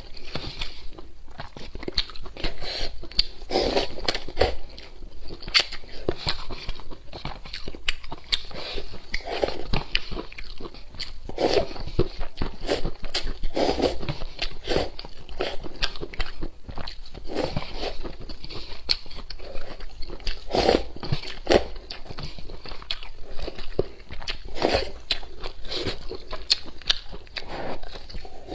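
Close-miked slurping of instant hot and sour sweet-potato starch noodles drawn up from a paper cup, with wet chewing and lip smacks. Irregular short clicks and slurps come every second or so throughout.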